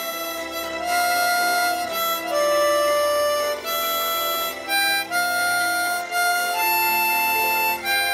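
Hohner harmonica playing a slow melody of held notes, each lasting about a second, with brief breaks between phrases.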